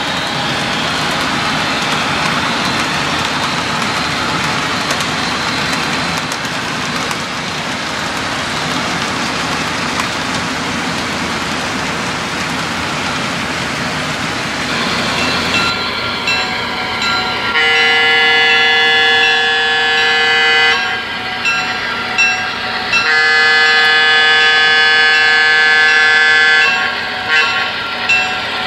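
HO-scale model train rolling along the track with a steady rumble, then the model Alco PA1 locomotive's sound-decoder air horn blows two long blasts followed by short toots.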